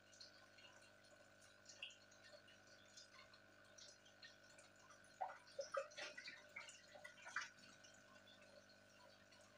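Faint aquarium bubbling: small drip-like pops from an air-stone bubbler, clustered from about five to seven and a half seconds in, over a steady faint hum.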